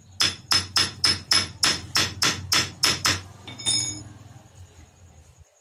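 Hammer tapping on the metal of a Maruti steering rack: about a dozen sharp taps, three or four a second, each with a short metallic ring, then one ringing clink.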